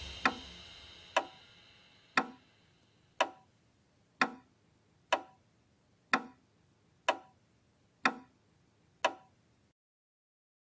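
Clock ticking, one sharp tick a second, ten ticks in all, under the fading tail of music in the first two seconds; the ticking stops near the end.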